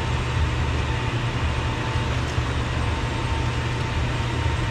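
Steady low rumble and hiss of background noise with a faint steady high tone, unchanging throughout, with no distinct clicks or knocks.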